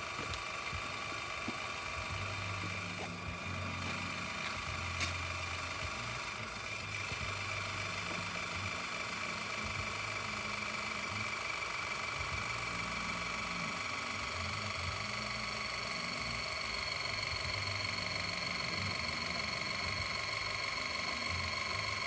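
A machine running steadily, with a constant high-pitched whine and an uneven low rumble underneath.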